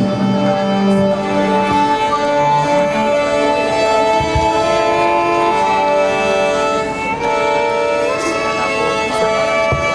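Orchestral music led by bowed strings, playing long held notes that move from pitch to pitch, with a wavering slide about seven to eight seconds in.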